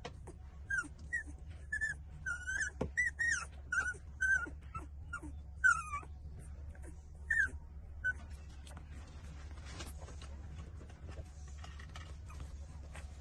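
18-day-old puppies whimpering while they nurse at their mother's teats: about a dozen short, high-pitched squeaks in the first eight seconds, then only faint clicks and shuffling.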